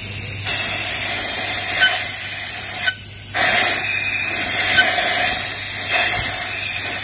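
Compressed air hissing from an air blow gun into the intake port of a cylinder head, in two long blasts with a short break about three seconds in: a valve leak test of cylinder 2, looking for a leaking intake valve.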